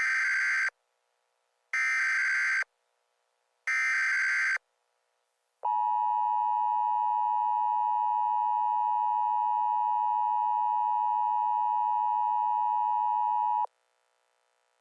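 Emergency Alert System tones opening an alert: three short, raspy SAME digital header bursts about a second apart, then the steady two-tone EAS attention signal (853 and 960 Hz) held for about eight seconds before it cuts off.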